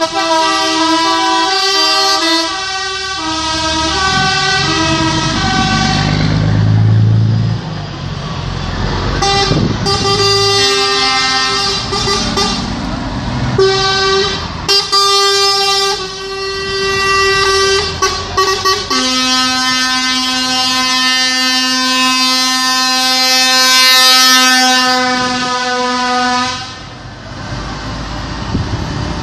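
Truck air horns sounded one after another as trucks pass in a convoy. First comes a quick run of short horn notes that step up and down, then a truck engine passes, then several separate horn blasts. About two-thirds of the way through, one long steady horn blast is held for around seven seconds.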